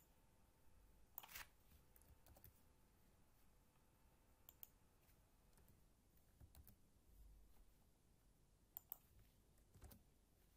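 A few faint, scattered clicks from a computer keyboard and mouse as code is selected and typed, over near-silent room tone.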